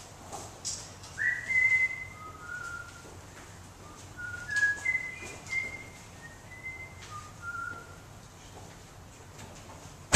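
A person whistling a short, halting tune of separate notes, the first one sliding up, with a few faint knocks around it.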